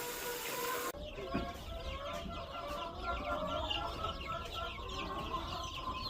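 A rushing water-like hiss cuts off about a second in. It leaves a brooder of baby chicks peeping, many short, high chirps overlapping throughout.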